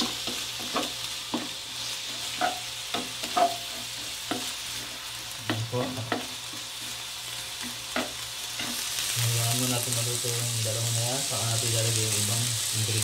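Diced carrot and chicken breast strips stir-frying in oil in a wok: a steady sizzle, with a wooden spatula scraping and knocking against the pan many times in the first eight seconds. About nine seconds in the sizzle gets louder.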